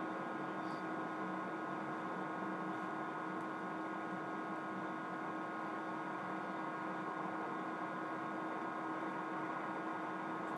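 Steady electrical hum, like mains hum, with a low hiss underneath and no clear work sounds.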